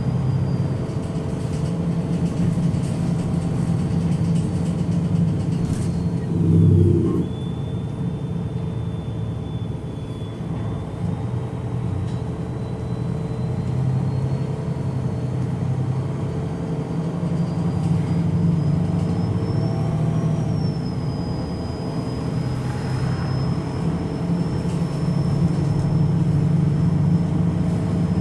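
MAN NG313 articulated bus's horizontal six-cylinder D2866 LUH turbodiesel idling at a standstill, with the thin whine of its hydraulic cooling fan drifting in pitch: it dips about seven seconds in, then slowly rises and holds. A short, louder low rumble comes just before the dip.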